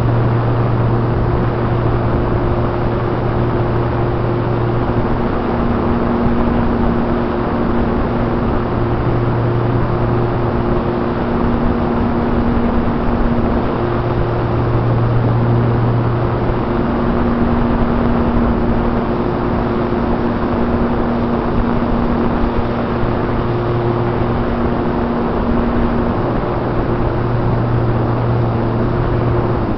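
Radio-controlled model airplane in flight, recorded on board: steady wind rush over the airframe with the hum of its motor and propeller, the low hum fading and returning every few seconds.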